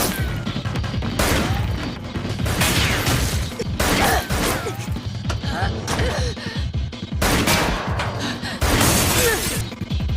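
Anime fight-scene soundtrack: dramatic background music over repeated impacts, crashes and whooshes, arriving every second or two.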